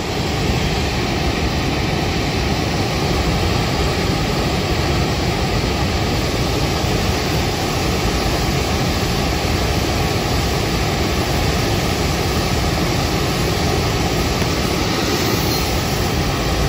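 Gas brazing torch burning with a steady, loud rushing noise that comes on abruptly at the start, heating a diamond segment to silver-braze it onto a steel saw-blade core.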